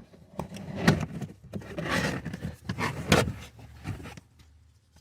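A plastic trim cover under a car's glove box being pulled off by hand: a few sharp plastic clicks and knocks with scraping and rustling between them, the loudest clicks just under a second in and around three seconds in.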